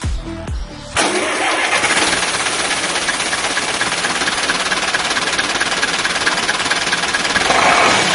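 Electronic dance music cuts off about a second in, and a Zetor 7320 tractor's four-cylinder diesel engine starts and then runs steadily.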